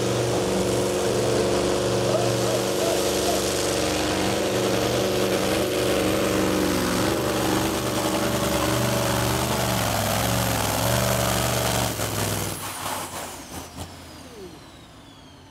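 Tuned diesel pulling trucks running flat out under load against their brake sleds, a steady heavy engine drone. About twelve seconds in the engines cut off abruptly, and a thin high whine falls away as they wind down.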